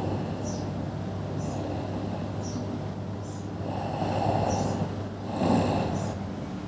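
A person snoring: two loud snores, the first about four seconds in and lasting about a second, the second shorter at about five and a half seconds, over a steady low hum.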